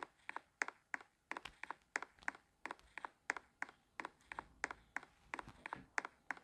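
Faint, rapid light clicking or tapping, about three to four sharp clicks a second, slightly irregular.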